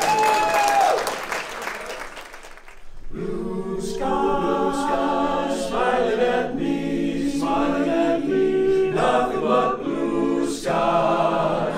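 Male barbershop chorus singing a cappella in close harmony, holding chords that change every second or so. The singing starts about three seconds in, after a short stretch of mixed voices and clatter.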